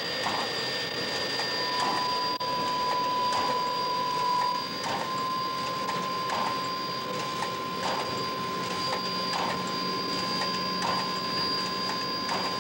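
Steam locomotive No. 2248, a 4-6-0, standing and hissing steam from around its cylinders, with a faint regular chuff about every second and a half.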